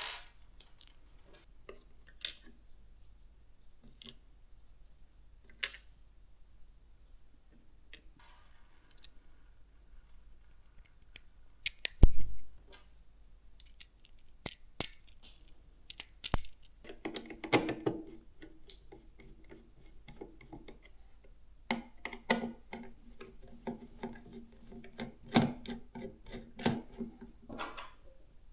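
Hands fitting gaming PC components: scattered small clicks and taps of plastic and metal parts, a heavier knock about twelve seconds in, and stretches of quick clicking and rubbing around the middle and again towards the end.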